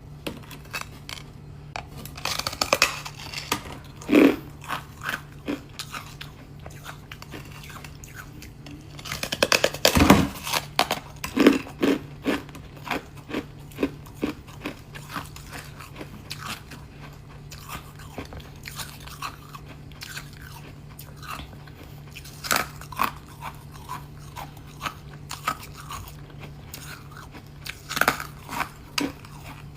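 Close-up crunching of thin, fluffy foam ice being bitten and chewed. Bites come in clusters, the loudest about ten seconds in, followed by runs of crisp chewing crunches. A faint steady low hum runs underneath.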